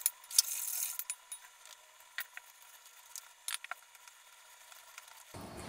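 Scattered light clicks and taps of a utensil against a stainless-steel mixing bowl as dry ingredients are stirred into a batter, the loudest in the first half-second; a fuller, lower sound sets in near the end.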